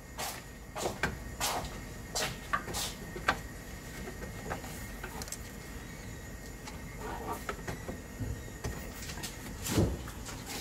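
Hard plastic radiator fan shroud being worked down into its mounts against the radiator: scattered, irregular plastic clicks and knocks as its bottom tabs are fitted into their holes, with one heavier knock near the end.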